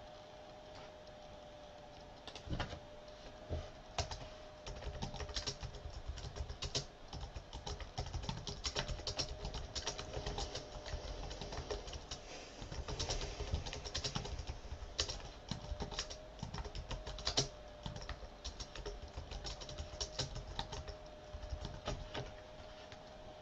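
Typing on a computer keyboard: irregular runs of quick key clicks that start about two seconds in and stop shortly before the end. A faint steady hum runs underneath.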